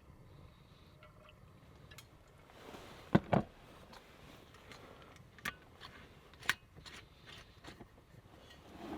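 A few sharp knocks and clatters of objects being handled: a loud double knock about three seconds in, then two smaller knocks.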